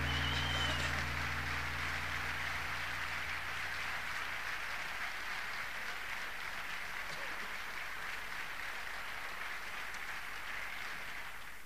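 The last held low notes of the music die away in the first couple of seconds, leaving steady applause from an audience, which drops off near the end.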